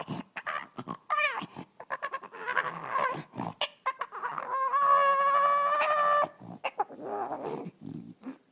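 A dog vocalising in a run of short, wavering yowls and grumbles, then one longer, nearly level howl lasting about a second, around five seconds in.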